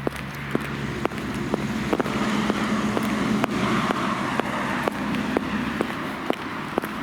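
A vehicle passing, its road noise swelling and then easing, over short sharp clicks about twice a second.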